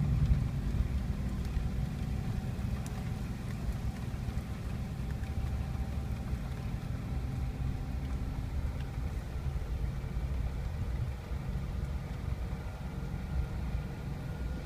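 Jeep driving on a dirt road, heard from inside the cabin: a steady low rumble of engine and tyres, with faint steady engine tones above it.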